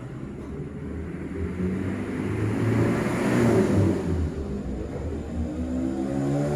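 A motor vehicle passing by: its engine sound builds to a peak about halfway through and then fades.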